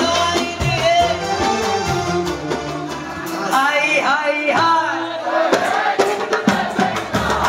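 Moroccan wedding music: a woman singing into a microphone over goblet-drum (darbuka) percussion.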